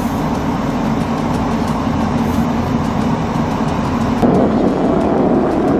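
A steady low rumbling noise with no speech, growing louder a little after four seconds in.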